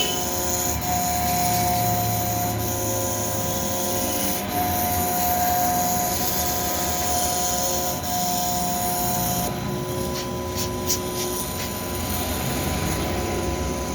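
Small CNC milling machine running: a steady high spindle whine with a rasping hiss, as it grinds down the layers of an iPhone XS Max logic board.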